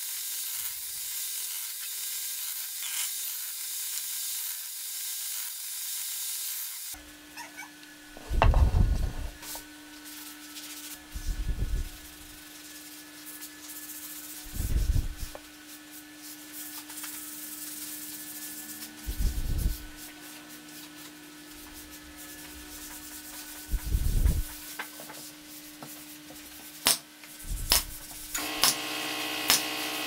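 Wood being sanded: a steady, scratchy rubbing. After a break it gives way to a low steady hum, with a dull thump every few seconds, six in all.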